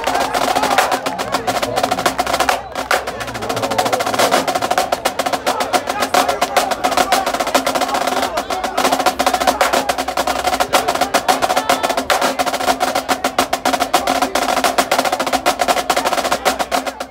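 Marching drumline snare drums playing a fast, dense cadence of crisp stick strokes and rolls, with bass drums beneath. The playing breaks off for an instant about three seconds in.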